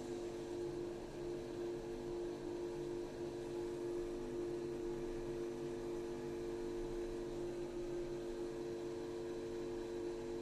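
Steady electrical hum of a running household appliance, a mains buzz with two strong steady tones and no change in pitch.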